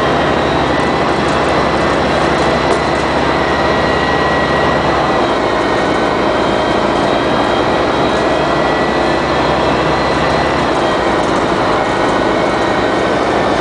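The Detroit Diesel Series 50G four-cylinder natural-gas engine and Allison B400R transmission of a 1999 Orion V CNG bus running, a loud steady drone with a thin high whine. The low engine note changes about five seconds in and again near the end.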